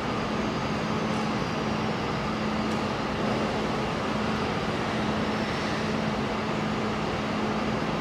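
Steady machinery hum: a constant noisy drone of fans and motors with a steady low tone underneath.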